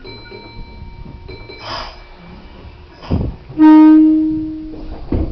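Train horn sounded once: a single loud pitched blast a little over a second long, starting abruptly and fading out, from a train running on caution past a failed level crossing.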